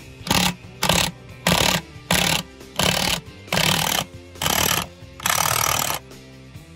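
Impact wrench with a long socket on the nut of a truck air-spring mount, fired in about nine short bursts of hammering, the last one longer, near the end.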